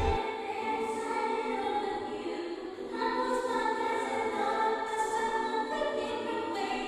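Music with a choir singing long held chords, thin and without bass; the chord changes about three seconds in.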